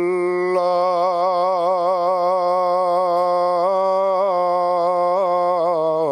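A muezzin's solo male voice chanting the adhan, the Islamic call to prayer, holding one long unbroken note with wavering, ornamented turns of pitch as he draws out a phrase of "Allahu akbar".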